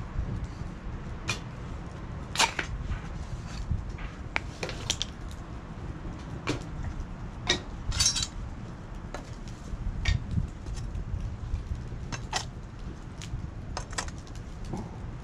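Stainless-steel fire pit parts being handled, with scattered metallic clinks and knocks at uneven intervals, the loudest about two and a half and eight seconds in, over a steady low rumble.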